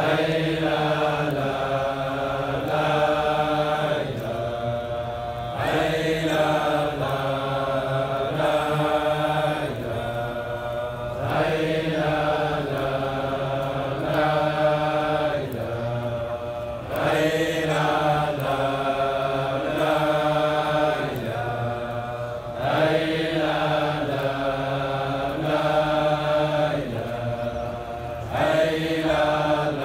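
Large group of men chanting a Sufi Friday dhikr (hadra) in unison, one short phrase repeated over and over in a cycle of about six seconds.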